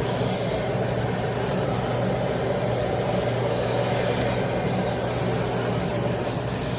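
Aspiron bagless canister vacuum cleaner running steadily: a rush of air over a constant motor hum.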